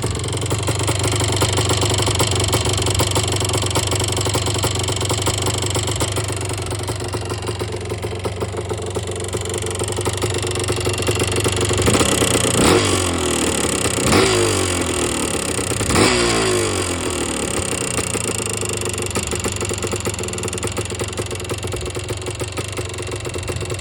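1977 Yamaha IT250's two-stroke single-cylinder engine running, blipped three times in quick succession about halfway through. Its noise is the sign of a bad top end, which the owner takes for piston slap or possibly rod bearing play.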